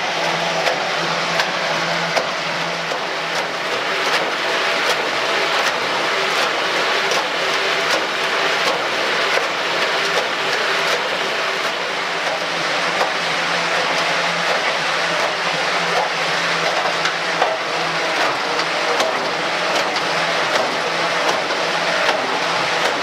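A firewood processing machine's engine running steadily at constant speed, with frequent short knocks and clatter over it.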